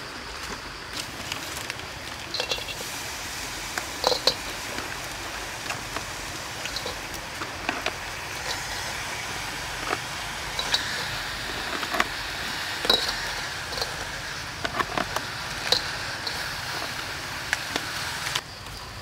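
Crabs being dropped into a steel wok: an irregular run of sharp clicks and short metallic clinks as their shells knock against the pan, over a steady background hiss.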